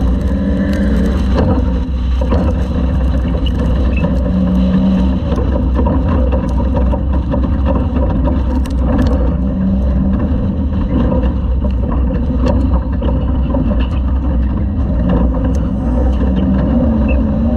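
Class 2000 off-road race truck at racing speed, heard on board: the engine runs hard with revs rising and falling over a heavy steady rumble, and short knocks and rattles come through now and then.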